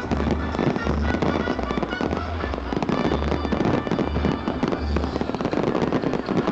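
A fireworks display going off densely: a rapid, unbroken run of cracks and bangs with deep booms, over loud show music.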